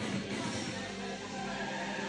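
Music playing steadily.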